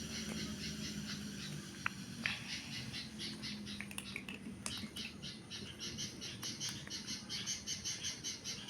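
Outdoor chirping: high chirps repeat quickly, about five a second, over a low steady hum, with a few sharp clicks about two and four to five seconds in.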